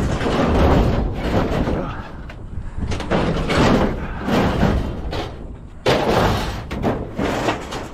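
Scrap metal being handled and loaded into a truck bed: a series of clanks, scrapes and thuds, with a sudden bang about six seconds in.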